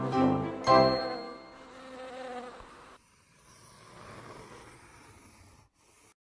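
A cartoon bee's buzzing sound effect, faint and fading out near the end, after children's background music ends on a final chord about a second in.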